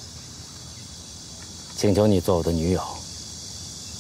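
Steady, high insect chirring throughout, with a person's voice giving a short utterance about two seconds in that lasts about a second.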